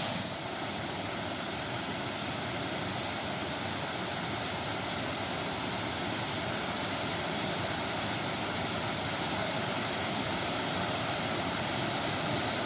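Small waterfall: water pouring and splashing in a steady rush.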